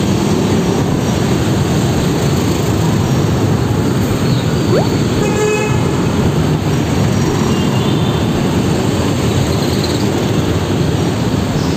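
Steady engine rumble of slow, congested city traffic, heard from among motorcycles in the jam. A short horn toot comes about five seconds in.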